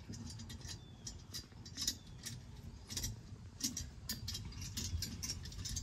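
Faint, irregular small metallic clicks and ticks as a ring-handled steel bolt is turned by hand, threading into the steel hitch-mount flag pole holder.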